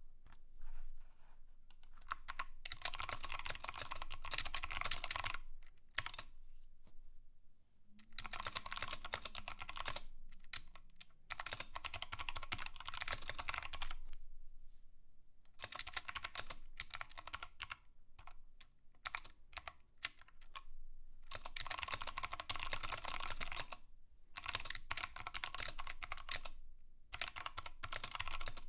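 Mechanical keyboard typed on in bursts of a few seconds each, dense clicking keystrokes broken by short pauses.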